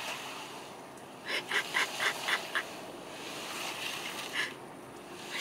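A quick run of about seven short honking calls, about five a second, beginning about a second in, with one more call near the end, over faint outdoor hiss.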